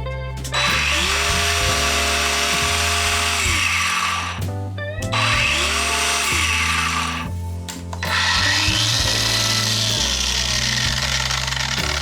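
Cordless biscuit jointer run three times, its motor whine rising as it spins up and falling as it winds down, over background music with a steady bass line.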